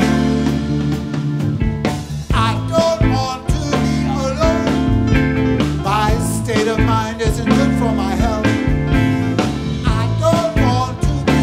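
Live band music with bass, drums, guitar and keyboards: a flute line at the start gives way to a man singing a few seconds in.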